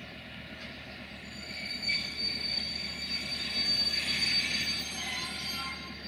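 Passenger coaches' steel wheels squealing against the rails as the train pulls away, a high-pitched, wavering squeal that swells about a second and a half in and dies away near the end, over a low rolling rumble.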